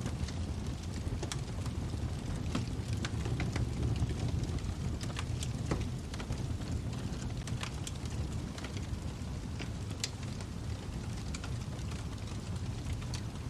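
Wood fire burning in a fireplace: a steady low rumble of flames with frequent sharp crackles and pops at irregular intervals.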